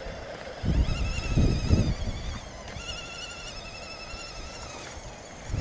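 RC crawler truck's electric motor and gearbox whining as it creeps through muddy water, in two long stretches with a slight waver in pitch, broken by a short pause about two and a half seconds in. Low rumbles are heard near the start.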